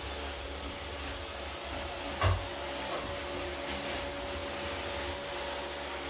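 Neato D7 robot vacuum running across the room: a steady whirr of suction motor and brush with a faint steady whine, and one sharp thump a little over two seconds in.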